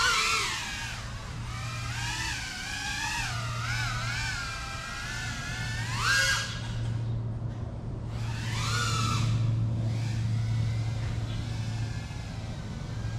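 FPV quadcopter's electric motors and propellers whining, the pitch rising and falling with the throttle. It grows loud and sweeps up in pitch as the drone comes close at the start, about six seconds in, and again around nine seconds.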